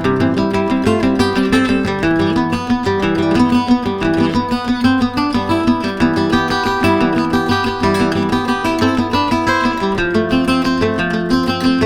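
Loud instrumental music with a fast run of plucked-string notes.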